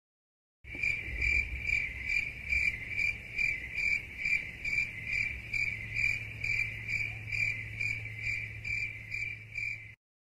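Crickets chirping in a steady pulsing rhythm, about two or three chirps a second: the stock "awkward silence" crickets sound effect. It starts under a second in and cuts off abruptly near the end.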